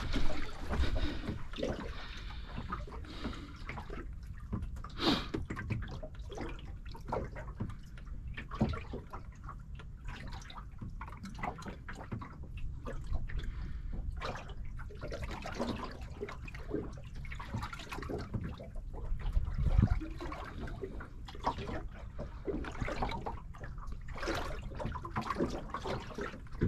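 Small waves lapping and slapping irregularly against a small boat's hull, over a steady low rumble.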